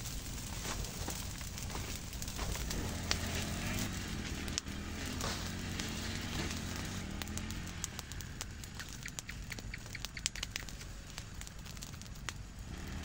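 Dry brush and a bundle of dry bamboo strips burning, crackling and popping steadily with many small sharp snaps.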